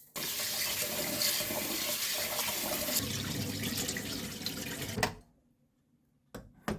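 Water running from a tap in a steady rush for about five seconds, then stopping. A few light knocks near the end.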